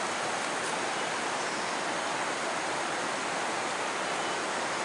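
Fast river water rushing over rocks and riffles: a steady, even rushing noise.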